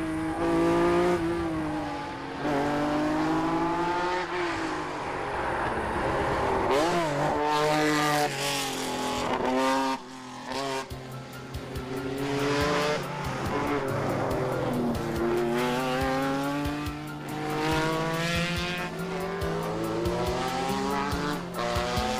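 Lancia Stratos rally car's Ferrari Dino V6 engine driven hard, its note climbing repeatedly as it accelerates and dropping at each gear change or lift-off, with a brief drop in level near the middle.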